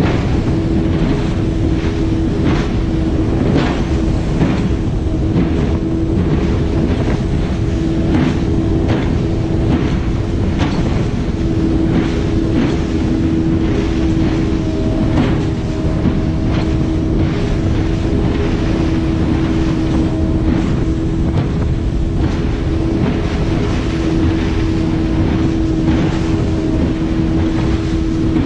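Small tuna-seiner speedboat running at speed across open sea: its engine holds one steady high note under loud water and wind noise, with repeated slaps of the hull and spray against the waves.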